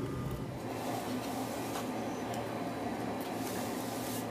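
Steady rubbing and scraping as rusty gunk is cleaned off an old metal vise by a gloved hand.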